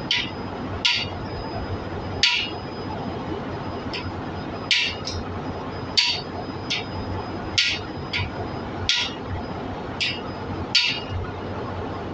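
About a dozen sharp metallic clinks, metal struck on metal by hand tools (a spanner and a hammer) working a nut on a diesel engine cylinder head. The clinks come at uneven intervals roughly a second apart, over a steady machinery drone.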